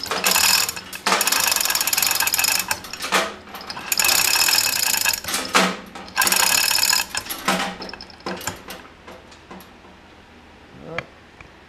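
Hand chain hoist being hauled: load chain rattles through the hoist with a fast ratcheting clatter in three long spells. It is lifting a homemade tracked sled of about 200 pounds to weigh it. A few lighter clinks follow, and it goes still about nine seconds in.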